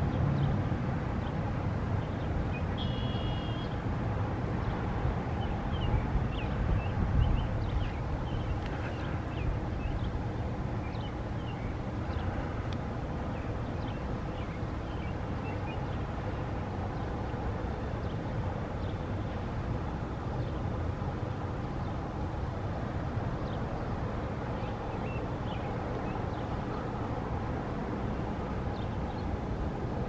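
Steady low rumble of road traffic going past, with short high bird chirps here and there.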